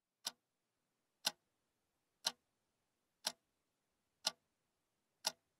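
Clock ticking: six sharp, even ticks, one a second.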